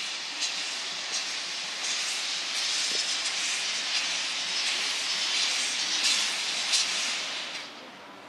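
DR class 52 steam locomotive 52 8134-0 moving slowly, with steam hissing steadily and pulsing in slow, even beats a little under a second apart. The hiss stops abruptly just before the end.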